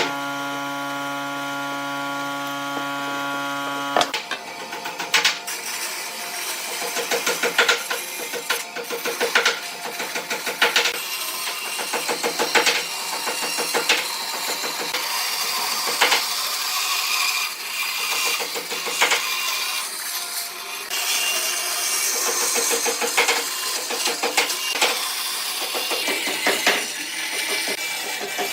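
Wood lathe running with a steady hum that cuts off about four seconds in. Then a turning tool cuts into spinning wood, a rough scraping full of irregular clicks and chatter as the tool bites.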